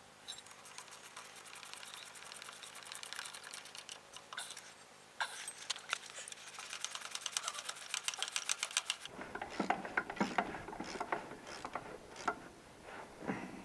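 Ratchet wrench clicking rapidly as a thermostat housing bolt is run in, in several spells of fast, even clicks. After about nine seconds come a few louder, irregular metal knocks and clinks of tools against the housing.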